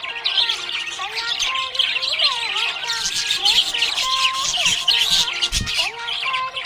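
Several budgerigars chirping and chattering nonstop in a dense flurry of quick high chirps, mixed with gliding and held whistled notes.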